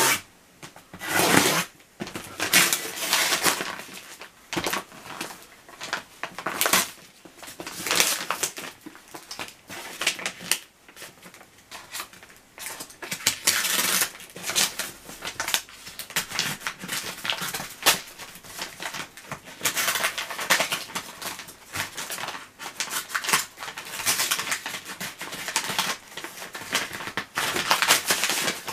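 Parcel packaging being torn open and crinkled by hand: irregular bursts of crackling, rustling and tearing throughout. The parcel is heavily wrapped.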